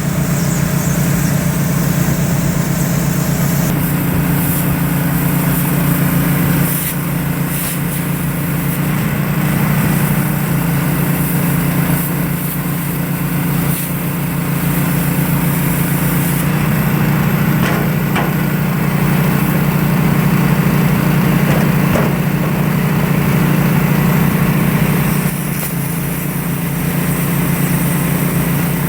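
Portable generator's small engine running steadily while it powers a plasma cutter. Its pitch steps up and down several times as the cutting load changes, with a steady high hiss from the plasma cutter over it.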